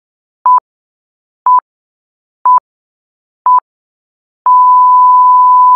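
Countdown beep sound effect: four short electronic beeps of one steady pitch, a second apart, then a long beep at the same pitch starting about three-quarters of the way in.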